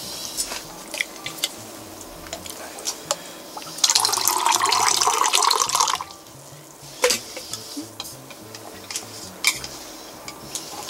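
Water pouring in a steady stream for about two seconds, starting about four seconds in, cutting off sharply. Light clicks and knocks of dishes come before and after it.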